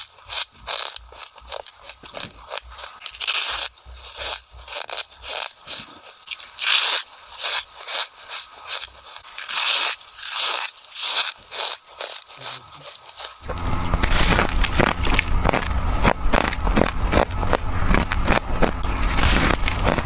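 A person biting and chewing freezer frost: separate crisp, crackling crunches. About two-thirds of the way through, the sound turns suddenly louder and denser, with continuous crackling and a low rumble underneath.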